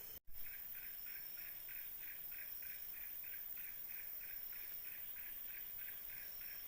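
A forest animal calling in a steady rhythmic pulse, about three short calls a second, with a faint thin high tone coming and going above it.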